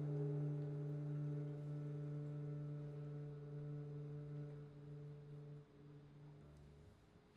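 The last note of a jazz trio's piece, one steady low pitch held and slowly fading. Most of it stops about five and a half seconds in, and a fainter part lingers until near the end.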